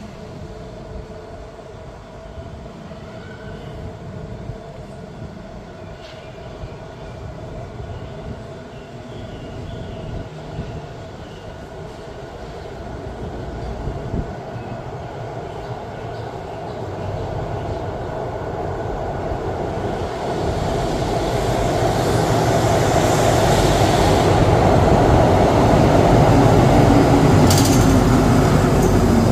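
Alstom diesel-electric locomotive with a Pielstick engine bringing a passenger train in, its engine and running noise growing steadily louder as it approaches and loudest over the last several seconds. A short high hiss sounds near the end.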